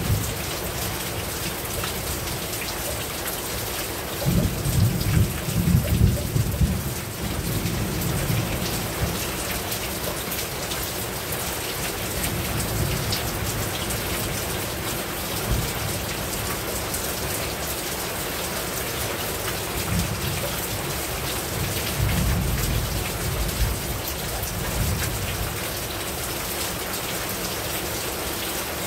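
Heavy rain falling steadily on a rooftop, with low rumbles of thunder about four seconds in and again around twenty-two seconds in.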